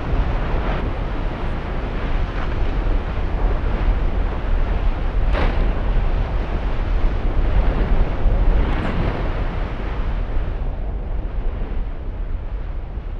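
Nyiragongo's lava lake churning and surging: a steady low rumble, broken by a few short bursts as the surface tears open and throws out spatter, the sharpest about five seconds in.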